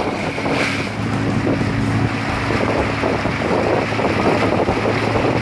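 Engine of a small passenger boat running steadily at cruising speed, a constant low hum, with wind buffeting the microphone and water rushing and splashing past the hull.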